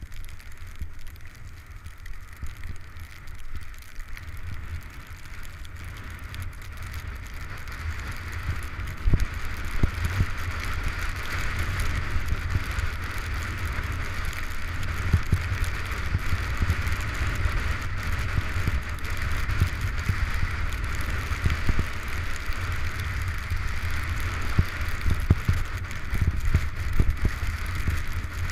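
Skis hissing over snow while wind buffets the helmet-mounted camera's microphone as a low rumble, growing louder from about eight seconds in as speed builds, with occasional knocks.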